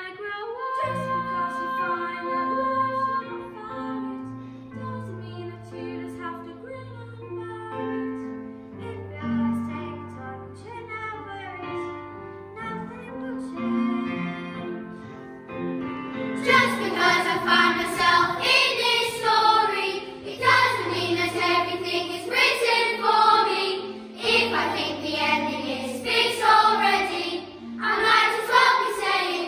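Children's choir singing with instrumental backing: held accompaniment notes over a bass line open it, and the children's voices come in louder about halfway through.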